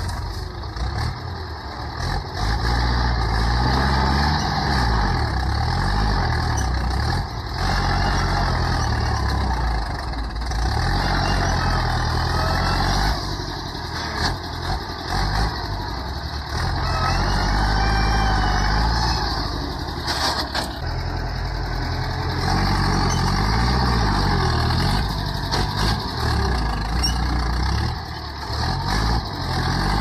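Ford 6600 tractor's three-cylinder diesel engine working under load while dozing soil with its front blade. Its pitch rises and falls over and over as the load changes.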